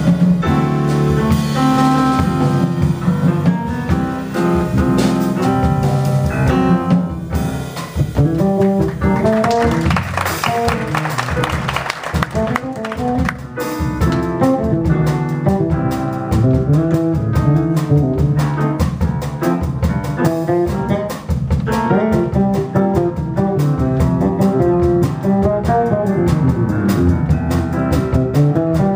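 Live straight-ahead jazz from a quartet's rhythm section: grand piano, electric bass and drum kit with cymbals. The tenor saxophone sits out for most of it.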